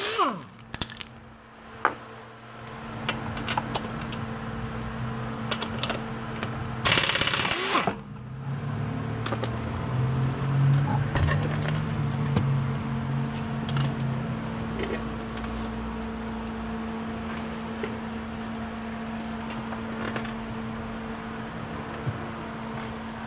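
Impact wrench spinning a lug nut off in one loud burst about seven seconds in, its pitch falling as it winds down, with scattered light metallic clinks of lug nuts being handled and dropped.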